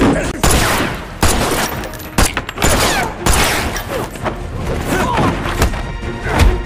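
Film fight soundtrack: a rapid, irregular series of hard punch and body-blow impacts, with grunts and shouts from the fighters.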